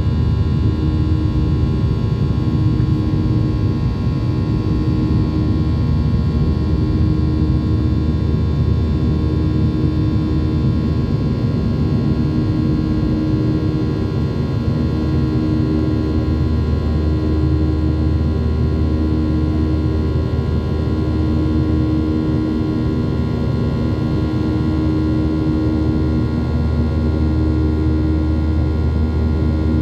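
Ryanair Boeing 737 jet engines at climb power after takeoff, heard inside the cabin over the wing: a loud, steady low rumble with a whine of several steady high tones on top. A droning hum throbs in and out every second or two.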